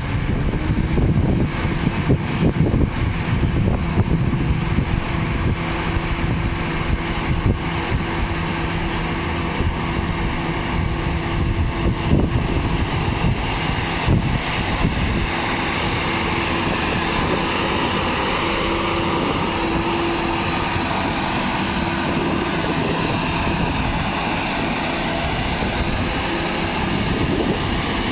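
A harvesting machine's engine running steadily under load, with dense rumble and rattling. There are irregular sharp knocks in the first half, and it smooths out later.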